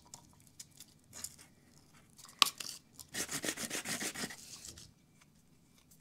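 Hand sanding with sandpaper, rubbing the freshly cut plastic inner sleeve of an Ergon bicycle grip smooth: a few faint scrapes, a sharp click about two and a half seconds in, then a quick run of rasping back-and-forth strokes for a couple of seconds.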